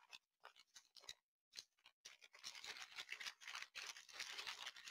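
Faint crinkling of a clear plastic bag holding a diamond-painting toolkit as it is handled, starting about halfway through after a few soft ticks.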